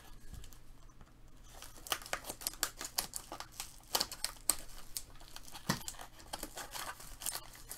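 Foil trading-card pack wrapper being torn open and crinkled by hand: a quick run of sharp crackles that gets busy about two seconds in.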